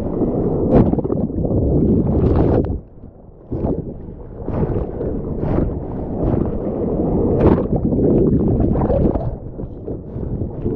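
Sea water splashing and rushing around a mouth-mounted GoPro in the surf, with wind buffeting the microphone and scattered sharp splashes. The sound drops away briefly about three seconds in.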